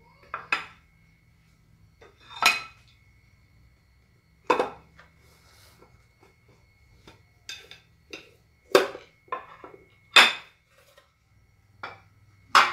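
A plate and a metal loaf pan knocking and clattering against each other as a baked cake is turned out of the pan: a string of separate sharp knocks with a short ring, five or six louder ones spaced a second or two apart and quieter clicks between.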